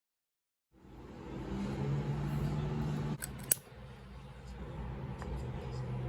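Paper and craft materials being handled on a work surface, with a low rustling noise and a sharp click about three and a half seconds in.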